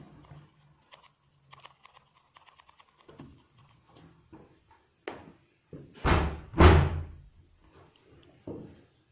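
Two loud, heavy thumps in quick succession, about half a second apart, some six seconds in, with softer knocks just before and near the end.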